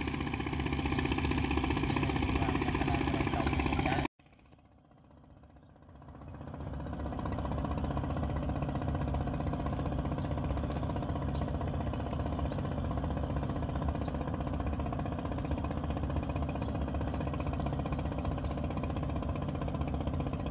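A small engine running with a steady, even drone. The sound drops out suddenly about four seconds in and fades back up over the next three seconds, then runs on unchanged.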